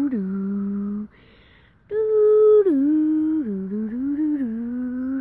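A voice humming a wordless tune in held notes that step up and down in pitch, with a short break about a second in.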